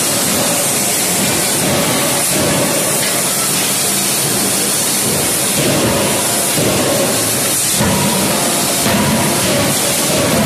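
Loud, steady roar and hiss of forging-shop machinery, with no distinct hammer blows.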